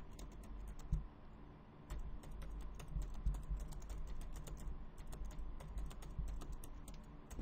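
Typing on a computer keyboard: a run of quick key clicks, a few at first, then a steady stream from about two seconds in.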